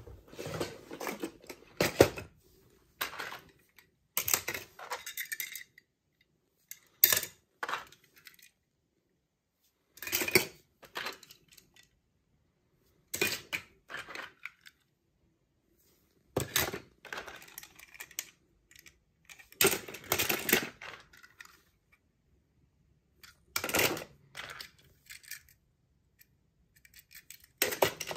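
Small toy cars clinking and clattering against each other and a hard surface as they are handled, in short bursts every few seconds with silent gaps between.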